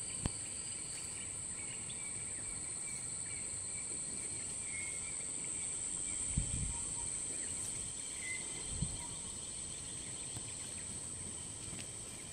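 Steady, high-pitched drone of insects, with a few faint chirps and two soft low thumps about halfway through.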